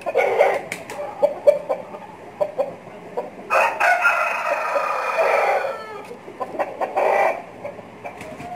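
Broiler breeder chickens clucking, with one long rooster crow of about two seconds starting about three and a half seconds in, and a shorter call near the end.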